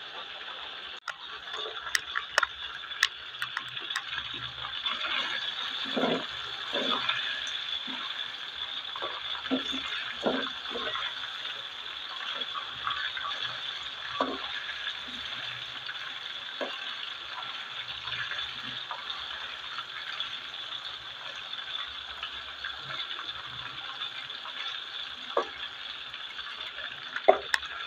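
Marinated chicken pieces deep-frying in hot oil in a wok: a steady sizzle full of small crackling pops. A spatula turning the pieces knocks and scrapes against the wok a few times.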